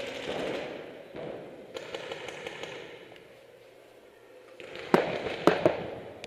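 Paintball fire: a dense rattle of rapid shots and paintballs striking, fading over the first three seconds, then three sharp, loud pops a fraction of a second apart near the end.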